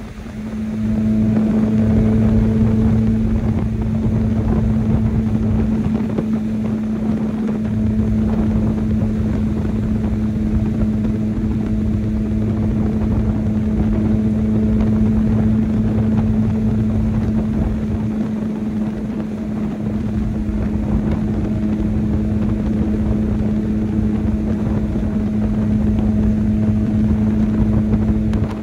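Chevrolet S10 pickup's stock four-cylinder engine pulling under load, a steady drone at an even, high engine speed that swells up about a second in.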